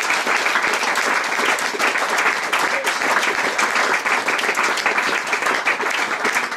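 Audience applauding: dense, steady hand-clapping from a seated crowd.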